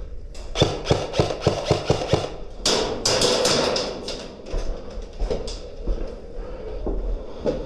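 Airsoft guns firing: a string of about eight single shots roughly a third of a second apart, then a dense, rapid burst of cracks about two and a half seconds in, trailing off into scattered shots.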